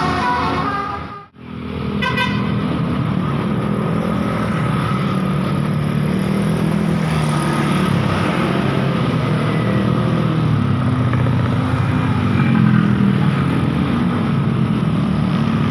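Large road vehicle's engine running close by amid traffic noise, its low pitch wandering up and down, with a short horn toot about two seconds in after a brief dropout.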